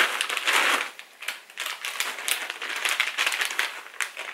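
A plastic snack bag of popcorn crinkling as it is turned over and handled, densest in the first second, then in scattered crackles.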